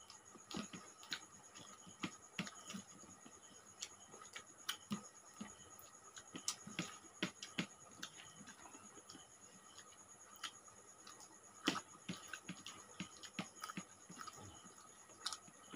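Eating sounds from people eating rice and curry with their hands: irregular soft clicks and wet smacks of fingers working the food on the plates and of mouths chewing.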